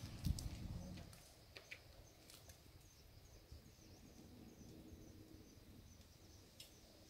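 Quiet forest ambience with faint, evenly repeated high chirping. There is a brief low thump about a third of a second in.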